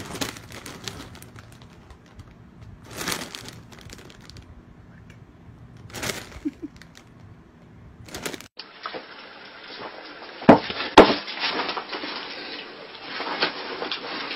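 Plastic snack-chip bags crinkling in short bursts every few seconds as a kitten moves on them. After a cut, two sharp knocks about half a second apart, then more rustling and knocking.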